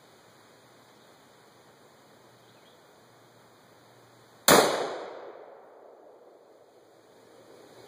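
A single gunshot about halfway through, sharp and loud, its echo dying away over about a second and a half. The exploding target does not go off: this is a shot, not a detonation.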